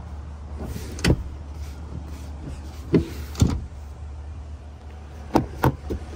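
Sharp knocks and clicks of a pickup truck's rear cab being handled: single knocks about a second in and around three seconds in, then a quick cluster of clacks near the end as the rear door is taken hold of. A steady low hum runs underneath.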